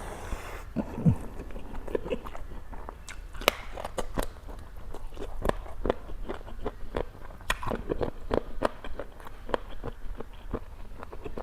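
Close-miked chewing of crunchy food, with many irregular sharp crunches and smacks in quick succession.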